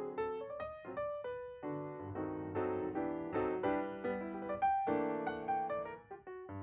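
Background piano music: a gentle melody of struck notes and chords.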